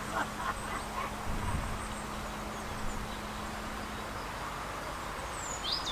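Open-air ambience with a steady low machine hum that stops about four seconds in, and a few faint bird chirps.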